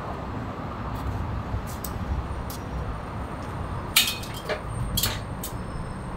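A few sharp metallic clinks and clicks, the loudest about four seconds in and two more within the next second, over a steady low rumble of background noise.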